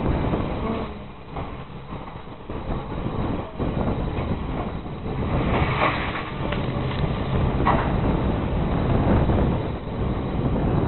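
Diesel engine of an orange rail maintenance vehicle running on the track as it moves, a steady low drone that grows louder in the second half, with a couple of brief higher-pitched sounds about six and eight seconds in.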